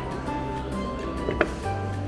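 Background music with held, changing notes, and a single short click about one and a half seconds in.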